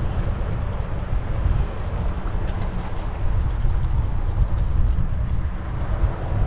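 Steady low wind rumble on the microphone while a RadRover 5 fat-tyre e-bike is ridden along a paved path, mixed with its road noise.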